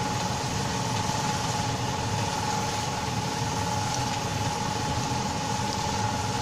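Steady motor hum with a constant mid-pitched whine and an even hiss underneath, unchanging throughout, while chili sauce cooks in oil in a pan on a gas stove.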